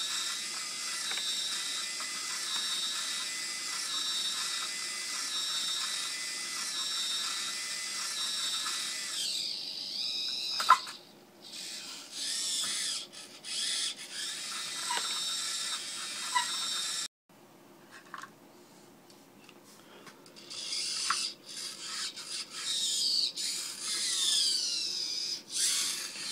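Small RC servo whining steadily as it turns a wooden firecracker-dispenser drum, then running in short stop-start bursts with a sharp click about eleven seconds in. After a short quiet break it runs again in bursts, with rising and falling whines near the end. The mechanism is one the uploader says keeps jamming.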